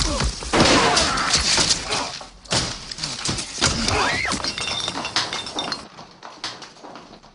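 Glass shattering and breaking with heavy crashing, loudest in the first two seconds, then scattered knocks and clatter that die away.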